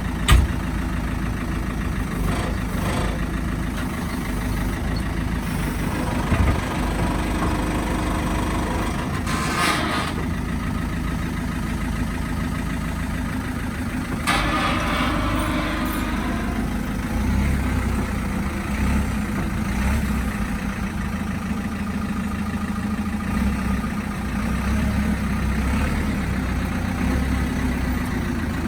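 JCB 3CX backhoe loader's diesel engine running steadily, with a sharp knock just after the start and two brief hisses, one about a third of the way in and one near the middle.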